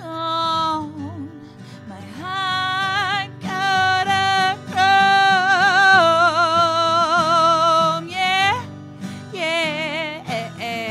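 A woman singing long held notes with vibrato over her own guitar in a live acoustic performance.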